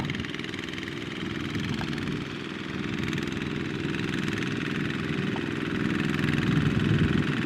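Small single-cylinder diesel engine of a mini two-wheel tractor running steadily, a little louder near the end.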